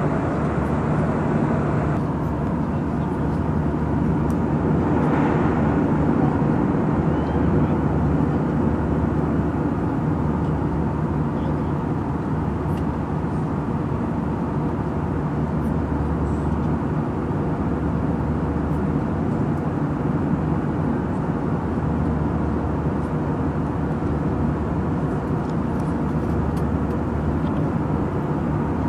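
Steady engine and airflow noise inside a jet airliner's passenger cabin in flight: an even drone with a low, constant hum.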